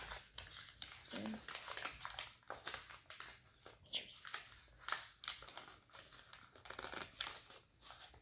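A 6-inch sheet of origami paper crinkling and rustling in the hands as it is folded and pinched along its creases, a rapid irregular run of small crackles.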